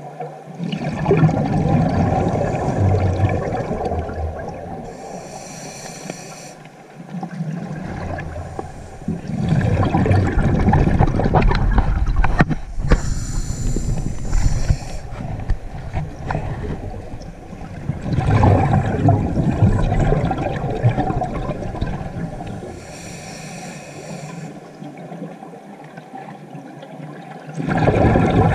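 Scuba diver breathing through a regulator underwater: long rumbling bursts of exhaled bubbles alternate with the hiss of inhaling, about three breaths, heard through the camera's housing.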